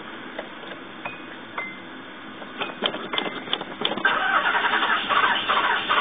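Nissan V6 being cranked on the starter without catching: a pause with a few clicks, then the rhythmic cranking starts again about four seconds in. The engine has a blown head.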